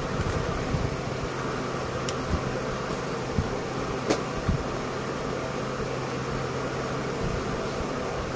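Steady electric machine hum, with a few light clicks and rustles from the leatherette bag pieces being handled on the table.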